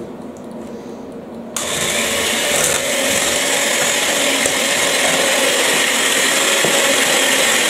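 Electric hand mixer switched on about a second and a half in, then running steadily, its beaters whisking egg whites in a stainless steel bowl towards a foam.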